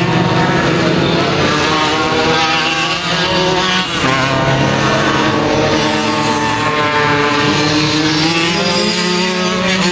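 Small moped engine running steadily, with the pitch shifting slightly a few times. This is the odd noise of a racing Mofa that later breaks down, and its cause has not been found.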